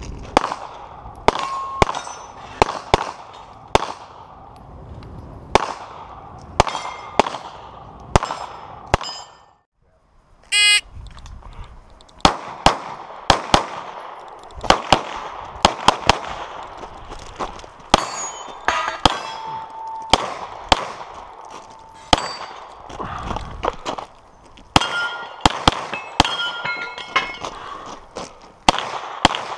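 Rapid pistol shots in quick strings during a practical shooting stage, several followed by the short ring of steel targets being hit. After a brief gap about ten seconds in comes a short electronic beep, the shot timer's start signal, and the firing picks up again with a compensated Open-division race pistol.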